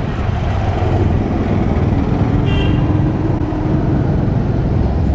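Scooter ride through city traffic: a steady low rumble of the scooter's small engine mixed with wind buffeting on the microphone and the surrounding traffic. A brief high-pitched beep sounds about halfway through.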